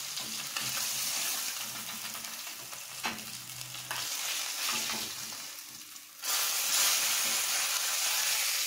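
Katla fish steaks sizzling in hot mustard oil in a pan as a spatula lifts them out, with a sharp spatula knock about three seconds in. The sizzle swells suddenly about six seconds in and stays louder.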